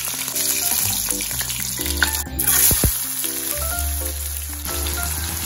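Hot oil sizzling in a wok as pieces of chicken and then sliced red onions fry, with background music playing over it.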